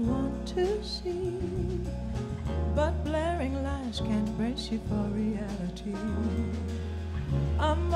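Live jazz: a woman singing a sliding, wavering melody over piano, electric bass and drum kit.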